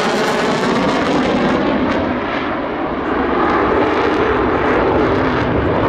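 Aircraft engine noise: a loud, steady rushing roar that dips slightly about halfway through.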